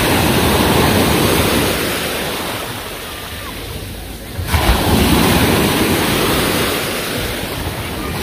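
Small sea waves breaking and washing up the shore: one surge at the start that eases off over a few seconds, then a second wave breaking suddenly about halfway through.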